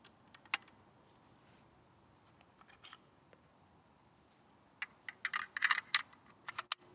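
Light clicks and taps of a precision rifle being handled, as the scope is adjusted and the rifle settled. A few single clicks come early, and a quick run of sharper clicks comes near the end.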